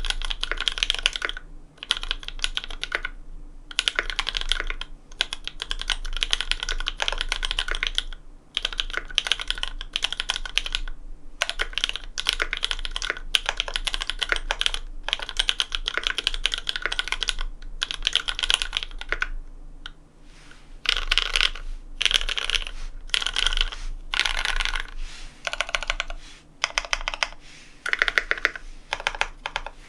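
Custom Satisfaction 75 mechanical keyboard with lubed linear Cherry MX Black switches (Kailh Cream stems) on an FR4 plate, typed on steadily: runs of rapid keystrokes broken by short pauses, with a brief lull about 20 seconds in.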